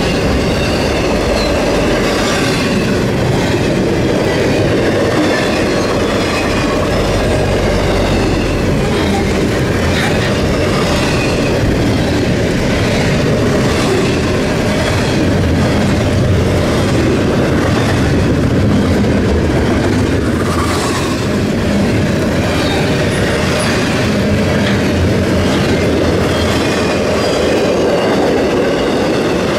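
Norfolk Southern intermodal freight train's cars rolling past at speed: a steady loud rumble of steel wheels on rail, with scattered clicks over rail joints and some faint high wheel squeal.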